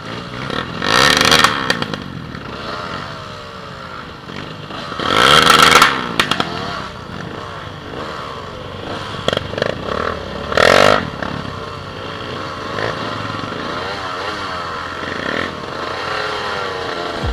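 Several off-road dirt bikes and a quad running together, their engines rising and falling in pitch as the riders blip and rev. Three louder bursts stand out, about a second, five seconds and ten seconds in.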